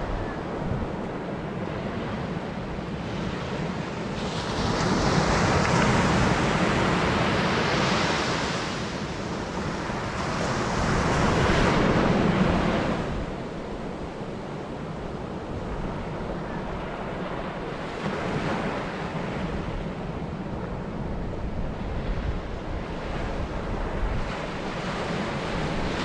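Small waves breaking and washing up a sandy beach, swelling louder twice in the first half and then settling to a steadier wash. Strong onshore wind buffets the microphone throughout as a low rumble.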